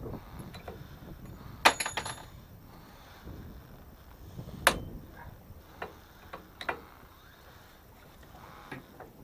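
Scattered metallic clinks and knocks of tools and parts being handled during boat engine work: a quick cluster of ringing clinks about two seconds in, a single sharp knock near five seconds, then a few lighter taps.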